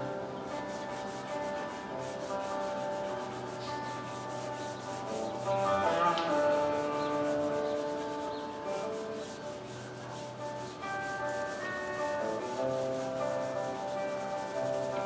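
Drawing strokes rubbing on paper as a large portrait is shaded by hand, repeated quick scratchy strokes. Soft background music with sustained tones plays under it.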